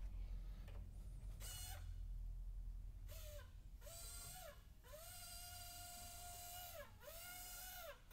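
A series of four high-pitched squeaks, each holding one pitch with a short rise at the start and a drop at the end, the longest about two seconds. A short scraping rush comes about a second and a half in.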